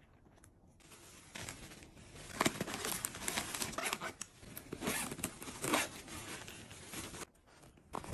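Rustling and crinkling as cosmetic bags are handled and opened: clear plastic toiletry bag, padded fabric makeup bag and its tissue-paper stuffing. The rustling comes in irregular clusters and dies down near the end.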